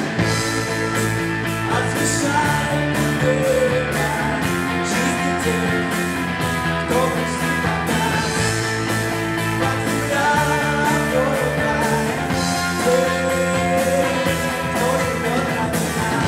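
Live band playing a rock song: electric guitar and bass guitar over a steady drum beat, with a held, wavering melody line on top.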